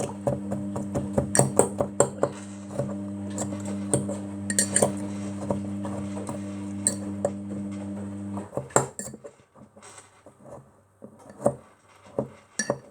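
A fork tapping and clinking against a mug as it crushes Oreo cookies, rapid strikes about five a second that thin out to scattered taps after about eight seconds. A steady low hum runs underneath and cuts off suddenly at that point.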